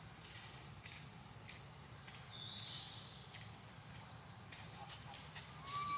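Steady high-pitched drone of forest insects, with a few brief clicks and short whistled calls, one about two seconds in and a lower one near the end.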